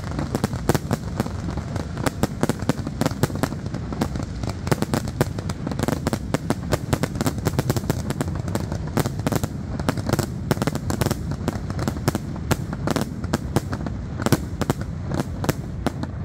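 Fireworks display: a rapid, unbroken barrage of bangs and crackles from many aerial shells bursting at once, over a steady low rumble.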